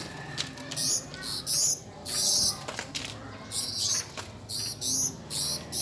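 Young caged songbirds giving repeated short, harsh, raspy calls, roughly two a second, while sparring with each other. A low steady hum runs underneath.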